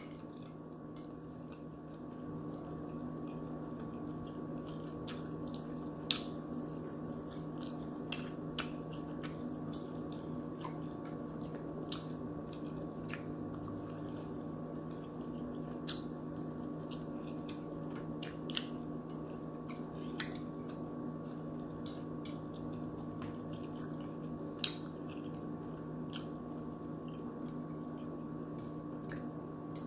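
Quiet eating: a metal fork clicking and scraping against a plate every second or two, with soft chewing, over a steady low hum.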